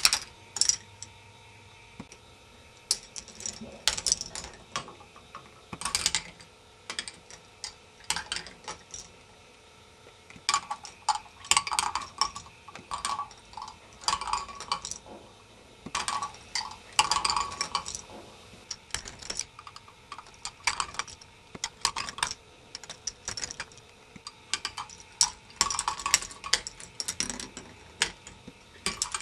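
Plastic balls running through a K'nex ball machine: irregular clicking and clattering as they roll along the plastic tracks, drop and knock against the pieces, sometimes in quick rattling clusters.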